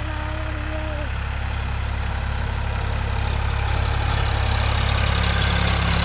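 Sonalika 42 HP tractor's diesel engine running steadily under load while it pulls a nine-tine cultivator through the soil. It grows louder from about three and a half seconds in as the tractor comes closer.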